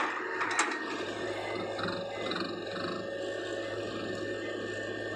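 Hitachi hydraulic excavator running under load as its bucket digs into soil: a steady engine drone with two sharp knocks in the first second.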